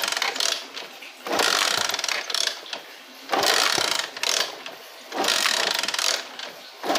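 Kick-starter of a Traxx Moby 50cc four-stroke scooter being kicked over and over, about four strokes roughly two seconds apart, each one cranking the engine with a mechanical ratcheting sound. The engine does not fire or catch, even though the plug is sparking well.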